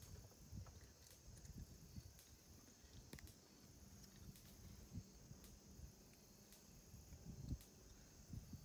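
Near silence: faint outdoor background with a few soft, scattered taps and bumps.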